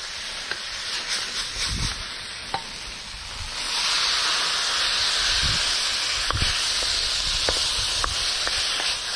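A chicken, zucchini and peanut stir-fry sizzling in a wok, with a wooden spatula scraping and knocking against the pan as it is stirred and tossed. The sizzle grows louder about three and a half seconds in.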